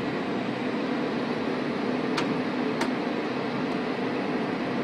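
Steady machine drone with a low hum, the background running of flight-line machinery. Two sharp clicks come a little past two seconds in and again just under three seconds in.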